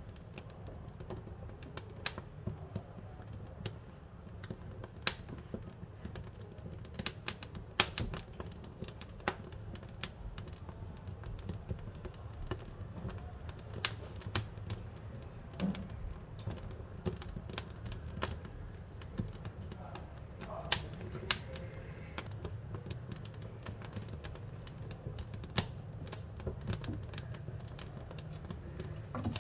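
Wood fire crackling in a wood-burning cookstove: irregular sharp pops and snaps over a steady low rumble of the burning wood.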